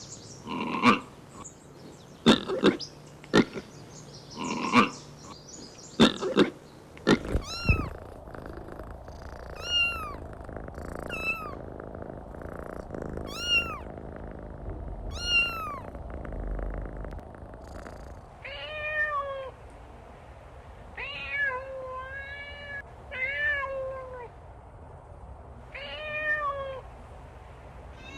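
Kittens mewing over and over: short calls that rise and fall in pitch, about one every second or two, high-pitched at first and lower after about eighteen seconds. The first few seconds hold a run of sharp clicks.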